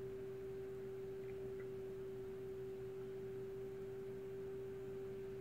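A steady hum at a single mid pitch over faint background noise.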